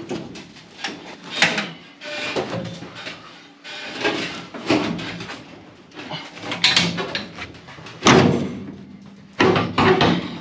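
Large sheet-steel trunk floor panel with attached wheel tubs being forced into a tight fit in a station wagon body: irregular metallic scrapes, clanks and bangs, the loudest about eight seconds in.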